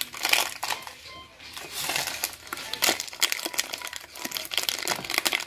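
Foil-lined packet crinkling as hands pull it open, with irregular crackles that come and go.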